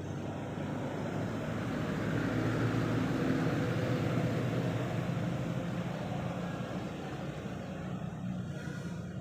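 A motor vehicle passing by: engine and road noise that swells to a peak a few seconds in, then slowly fades.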